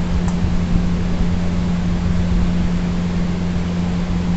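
Steady background hum with an even hiss over it, unchanging throughout; one faint tick about a third of a second in.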